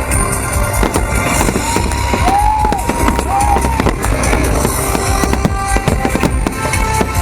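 Fireworks bursting and crackling in quick succession over loud show music.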